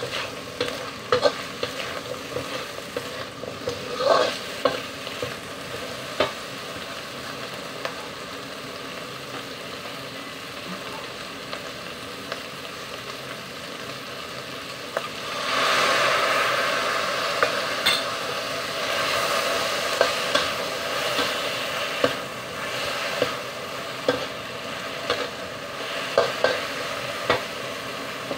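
Sliced okra stir-frying in a wok: a steady sizzle with the metal spatula scraping and clicking against the pan as it is stirred. The sizzle grows louder about halfway through.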